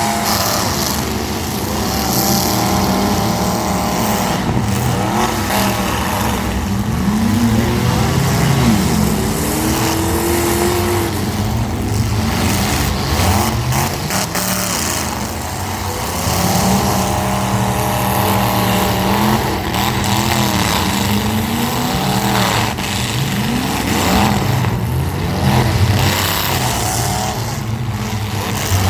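Several compact-car engines revving up and down in a demolition derby, with occasional sharp bangs of cars colliding.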